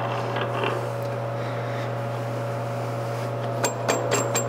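Steady low hum, then, in the last second, several light metallic clicks as a brake caliper is fitted over its shimmed mounting studs.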